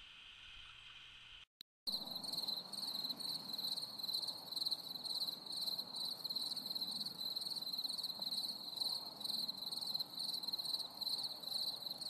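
Crickets chirping in a steady, evenly pulsing high trill. It starts abruptly after a brief dropout about a second and a half in, laid in as a sound effect over an awkward silence, and cuts off just as abruptly near the end.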